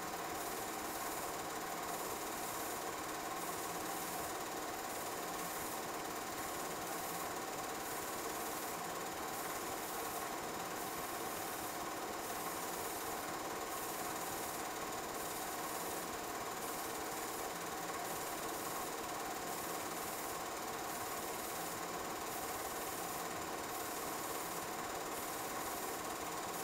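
Film projector running: a steady mechanical whirr and clatter of the motor and film transport.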